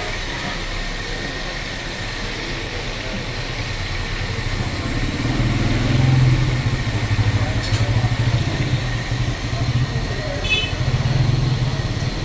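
Motor vehicle engine running close by, growing louder about five seconds in with an uneven low pulsing over steady street noise; a brief high tone near the end.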